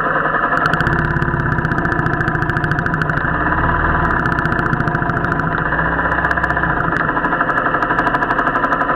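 Royal Enfield motorcycle engine running steadily, its firing heard as a fast, even beat.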